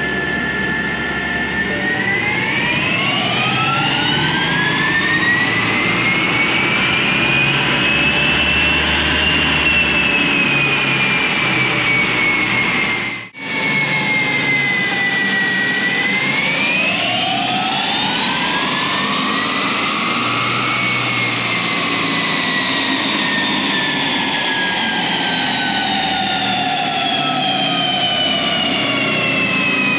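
BMW 540d's twin-turbo diesel straight-six run on a chassis dyno. A loud whine with several overtones rises over several seconds as the car winds up on the rollers, then slowly falls as it winds down, over a low engine rumble. After a brief cut about 13 seconds in, a second wind-up peaks and is followed by a long run-down.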